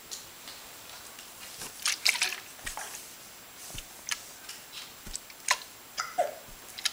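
Baby hiccupping: a string of short, sharp hiccups at uneven intervals, one with a brief falling voiced sound near the end, among small wet mouth sounds.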